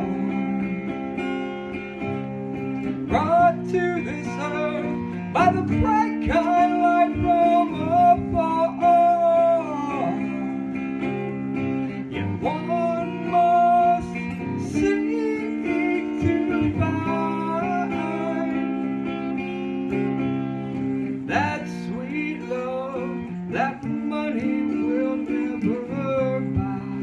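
Acoustic guitar music: sustained chords under a bending lead melody line.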